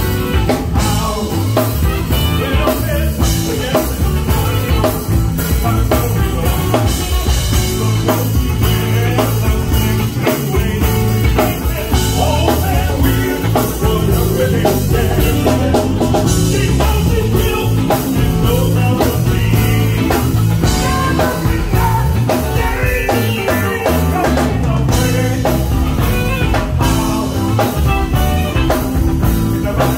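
Live band playing an upbeat dance number: a drum kit keeping a steady beat under electric guitars and bass, with singing over it.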